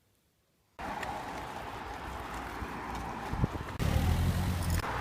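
Near silence, then outdoor ambience that starts abruptly under a second in: a steady hiss with wind rumbling on the microphone, loudest about four seconds in.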